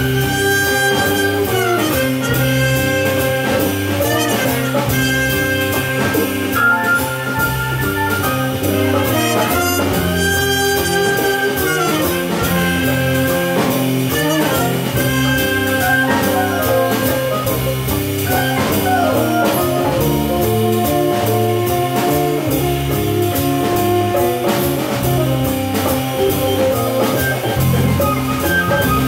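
Jazz big band playing, with brass and saxophones over a drum kit keeping a steady beat.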